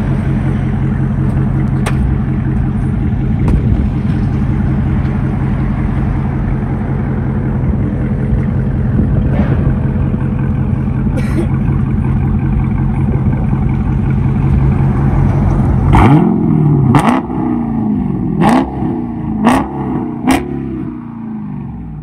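2016 Dodge Charger 392's 6.4-litre HEMI V8 through DynoMax Race Bullet mufflers, idling steadily and then blipped five times in quick succession near the end. Each rev rises and falls in pitch before the engine settles back.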